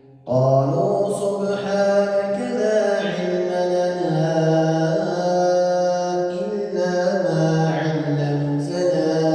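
A man's voice reciting the Quran in Arabic, in a melodic style with long held notes, played over a mosque's sound system of digital mixer, amplifier and loudspeakers. The voice comes in after a short breath pause right at the start.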